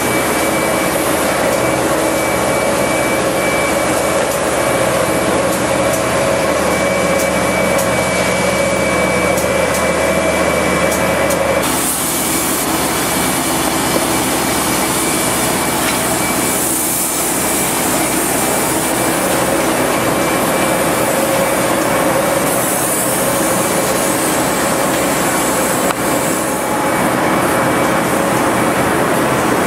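Spray rig for spray-applied waterproofing: a pump or compressor running loud and steady under the hiss of material forced through the hose nozzle. The sound changes abruptly about twelve seconds in.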